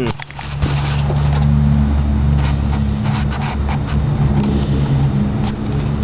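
Wind buffeting the camera microphone: a loud, steady low rumble. The camera is handled and turned about in the first second, adding knocks and scrapes.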